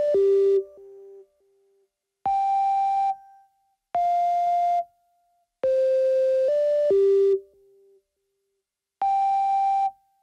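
Analog synthesizer playing a sparse phrase of short held notes, each with a hiss of noise under it and cut off abruptly, with about a second of silence between groups. Most groups are a single note. Twice the pitch steps through two or three notes, once at the very start and again about six seconds in.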